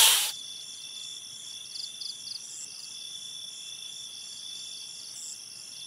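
Night ambience of crickets chirping steadily, with short quick runs of chirps now and then. A loud snake hiss cuts off right at the start.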